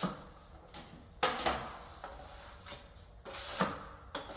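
Steel plastering trowel scraping stiff filler across a plasterer's hawk, in about four short scraping strokes.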